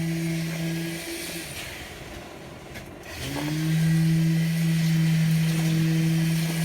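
A motor hums at a steady pitch and stops about a second and a half in. Around three seconds in it starts again, its pitch rising quickly as it spins up, then runs steady.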